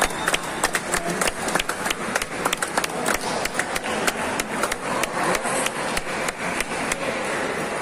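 Table tennis balls ticking off bats and tables, many overlapping and irregular, several a second, from play on many tables at once in a large hall, over a general murmur.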